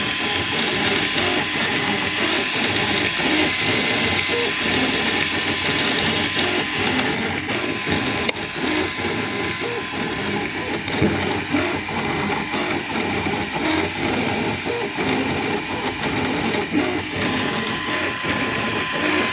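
Small desktop 3D printer running mid-print: its stepper motors whine in short notes that shift in pitch as the print head moves, over a steady fan hiss and a steady high tone.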